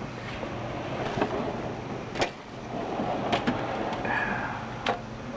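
Metal tool chest drawers sliding and clicking, with several sharp knocks, over a steady background of workshop noise.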